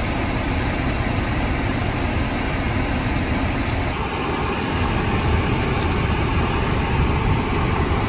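Steady low rumble and rushing noise inside a car cabin, with a few faint crackles.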